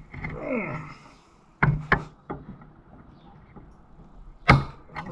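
Hand tools and steel shift-lever parts clacking on a wooden workbench as a tight bolt is worked loose with a wrench. Sharp knocks come about a second and a half and two seconds in, and the loudest knock comes about four and a half seconds in.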